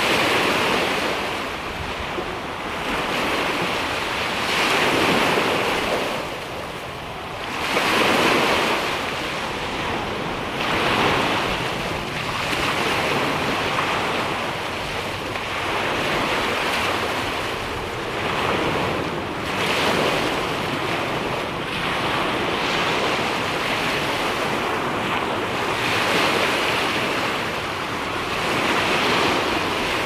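Small sea waves breaking and washing up a pebble beach, a steady surf that swells with each wave every few seconds.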